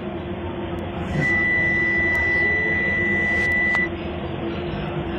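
A single long, high electronic beep, held for about two and a half seconds and ending with a click, over the steady running hum of a train.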